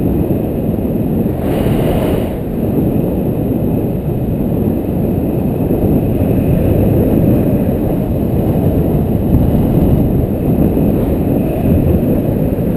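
Wind noise from airflow buffeting the camera microphone of a paraglider in flight: a steady, loud low rumble, with a brief higher hiss about two seconds in.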